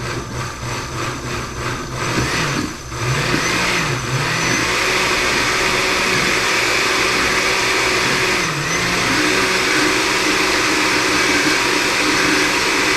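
Countertop blender pureeing hot chili of beans, tomatoes and broth on its ice-crush setting. It pulses rapidly for about two seconds, then runs steadily and louder, with the motor pitch dipping briefly a few times.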